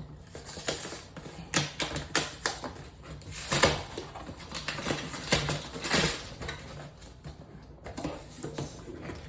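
Cardboard box being opened and its contents handled: irregular scraping, tapping and rustling of cardboard and packaging, with a few sharper clicks.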